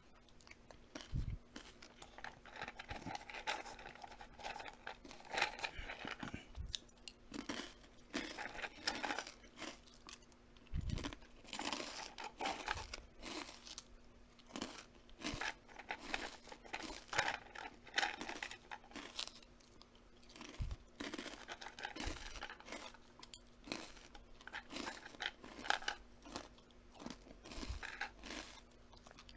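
Close-up crunchy chewing: crisp food being bitten and chewed, with many short cracking crunches coming thick and fast.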